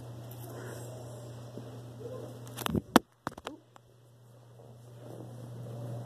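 A phone dropped while it is recording: a quick cluster of sharp knocks and clatter about three seconds in, the loudest a single hard hit, over a steady low hum.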